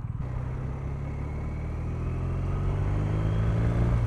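BMW R1250RT's boxer twin engine pulling, its revs and level climbing gradually as the bike accelerates.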